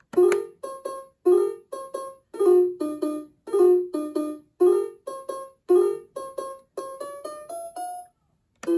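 Toy piano on a Fisher-Price Laugh and Learn activity table playing a simple tune of bright electronic piano notes as its keys are pressed, about two notes a second. The tune ends in a short rising run, and after a brief pause a new tune starts just before the end.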